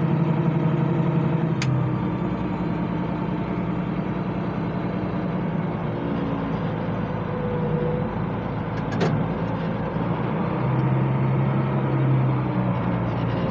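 International 886 tractor engine running steadily while pulling a hay baler. Its low drone eases off about two seconds in and comes back stronger near ten seconds, with a couple of faint clicks in between.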